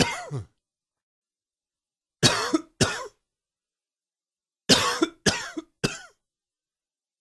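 A man coughing in a fit: the end of one cough at the start, two coughs a little over two seconds in, then three coughs in quick succession about five seconds in.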